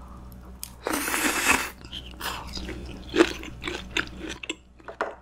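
Close-miked chewing of a mouthful of crispy-skinned pork belly (samgyeopsal) wrapped in pickled wild garlic leaves with wasabi. There is a loud crunch about a second in, then continued wet chewing with small crunches and clicks.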